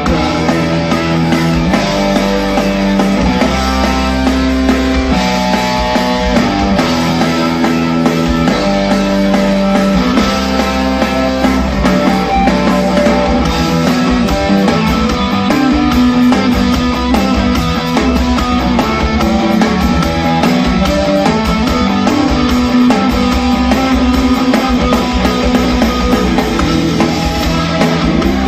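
Rock band playing live without vocals: electric guitar, bass guitar and drums.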